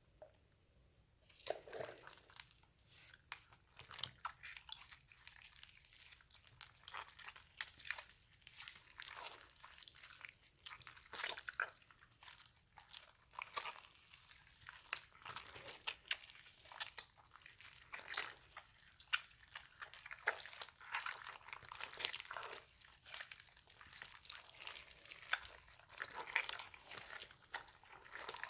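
Slime being squished and kneaded by hand, giving a dense, irregular crackling of sticky pops and clicks that starts about a second in.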